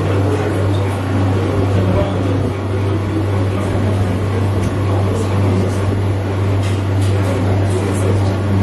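Indistinct chatter of a gathered crowd over a steady low hum.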